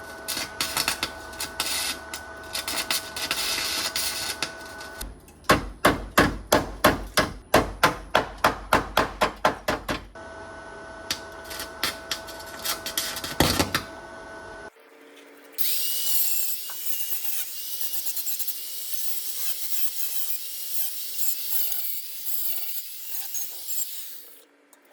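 Bodywork on a car's sheet-metal pillar. Rhythmic scraping strokes over a steady hum are followed, about five seconds in, by a run of sharp hammer blows on metal at about three a second. The scraping returns, and from about fifteen seconds in there is a steady high hiss.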